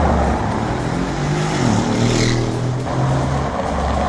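Engine and tyre noise of a boxy SUV driving up a paved road.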